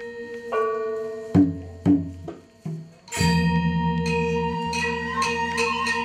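Balinese gamelan playing dance music: bronze metallophones ringing, two sharp unison strikes about a second and a half and two seconds in, a short lull, then the full ensemble comes back in loudly just after three seconds over a deep, sustained low tone.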